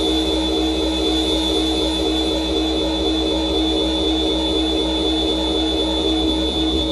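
MFOS Weird Sound Generator analog synthesizer holding a steady, dense drone: a high whistling tone and a lower tone over a fast fluttering pulse, like a jet engine.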